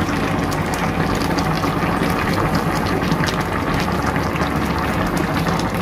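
A pot of vinegar-and-soy fish stew (tuna paksiw) boiling hard over high heat: a steady, dense bubbling with fine crackling pops.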